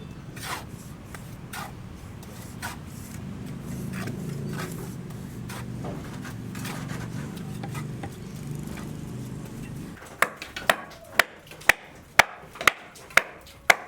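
Scattered knocks and taps over a low steady hum. From about ten seconds in comes a run of sharp, evenly spaced hammer blows, about two a second, on a building site.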